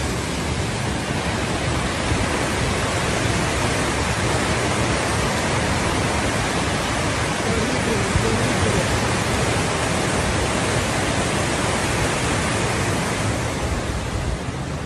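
Floodwater rushing in a steady torrent, an unbroken wash of noise.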